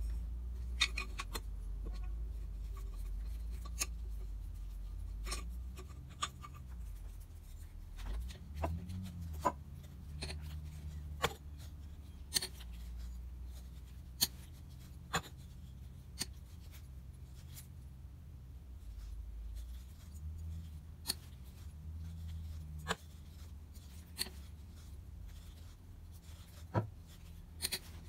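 Hand-held pipe cutter being turned around a thin-walled metal chime tube, scoring it: a dry scraping rub with scattered sharp clicks as cutter and tube knock together. The cutter is rusty, with rollers still frozen, so it slides on the tube rather than rolling.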